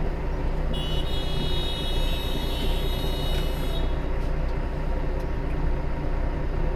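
Heavy truck's diesel engine running steadily, heard from inside the cab as a low hum. About a second in, a high-pitched steady tone joins it for about three seconds, then stops.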